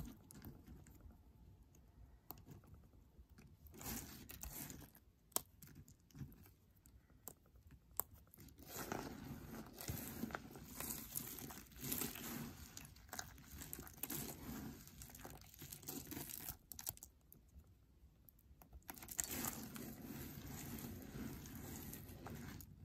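Dry, brittle soap chips crunching and rustling as hands crush and rake through a pile of them. There are scattered crackles at first, then dense crunching from about nine seconds in, a short lull, and more crunching near the end.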